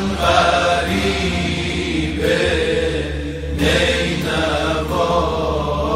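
Male tawashih vocal group chanting a Persian devotional lament, the voices holding long notes that slide slowly from one pitch to the next over a steady low drone.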